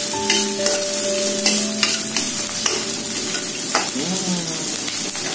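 Sliced shallots and garlic sizzling in hot oil in a wok while a metal spatula scrapes and tosses them in repeated strokes. The aromatics are being sautéed until they wilt.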